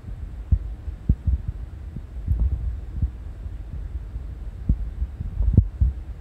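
Low, steady rumble with irregular soft thumps, the strongest one a little before the end.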